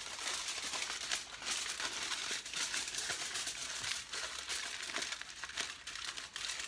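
Aluminium foil crinkling and crackling continuously as a sheet is wrapped around a wadded foil shape and squeezed by hand.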